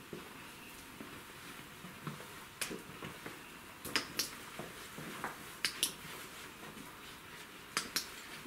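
Light, sharp clicks in a quiet room, mostly in close pairs, coming every second or two.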